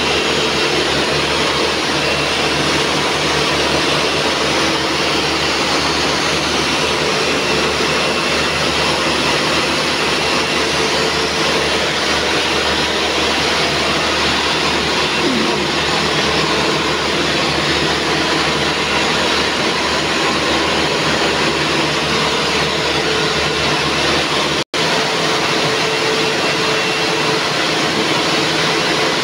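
Steady, loud mechanical din of a hall of nylon zipper coil-forming machines running together, with faint steady hums in it. The sound drops out for an instant near the end.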